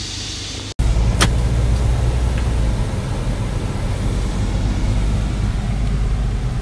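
Cabin noise of a Kia Morning (Picanto) hatchback being driven: a steady low rumble of engine and road noise. It begins abruptly under a second in, after a brief steady high hiss, and a single click comes shortly after it starts.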